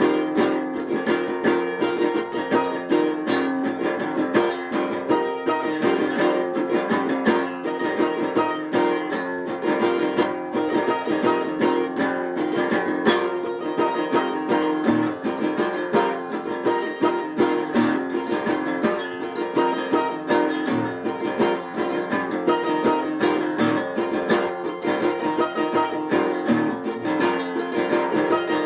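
Instrumental music on a plucked string instrument, a steady stream of quickly picked notes.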